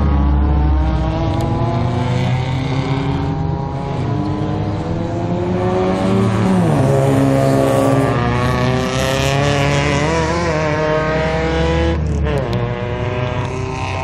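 Racing car engines revving hard as cars lap the circuit. The pitch climbs through each gear and drops sharply at the shifts, about halfway through and again near the end.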